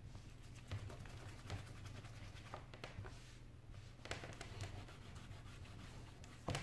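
A crumpled cloth wiped and rubbed across the glass screen of an iPad, with scattered light taps and a sharper knock near the end.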